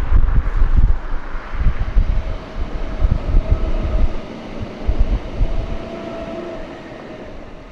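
Passenger train passing beneath a road bridge and moving away: a heavy, uneven low rumble with a faint steady whine, fading over the last couple of seconds.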